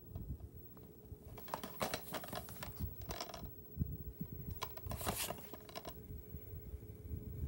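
A plastic DVD case handled and turned over in the hand: scattered clicks and a few short rubbing scrapes, over a faint steady hum.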